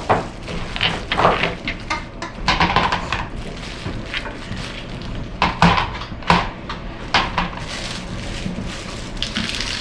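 Breakable chandelier balls being handled and set into a bowl, knocking and clinking against each other and the bowl in irregular light strikes.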